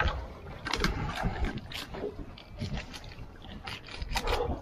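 Irregular knocks, clicks and scrapes of things being handled aboard a small fishing boat, over a low rumble.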